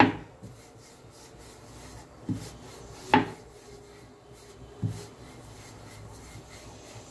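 Wooden rolling pin rolling out whole-wheat dough on a wooden board: a soft, steady rubbing broken by four short wooden knocks, the last about five seconds in.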